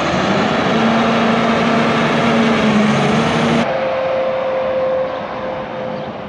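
A vehicle engine running steadily with a held drone, cut off abruptly about three and a half seconds in, followed by a thinner, steady higher hum that fades near the end.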